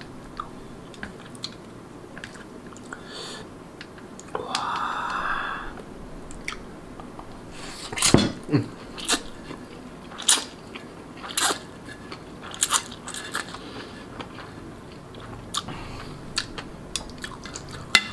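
A person eating fried instant noodles close to the microphone: a slurp about four and a half seconds in, then wet chewing with many sharp mouth clicks and smacks.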